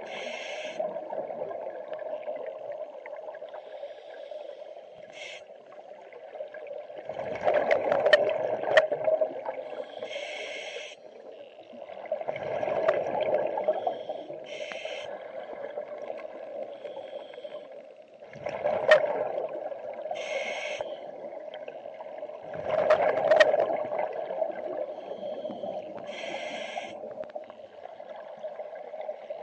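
Scuba diver breathing through a regulator underwater: a gurgling rush of exhaled bubbles four times, about every five seconds, with short hisses of inhalation between them.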